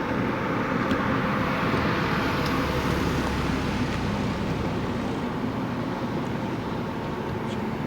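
Road traffic noise: a vehicle running along the road, a steady rumble that swells slightly a couple of seconds in and then eases.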